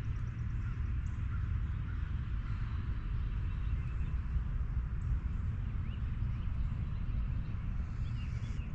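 Outdoor ambience: a steady low rumble of wind on the microphone, with a few faint, short bird chirps, more of them near the end.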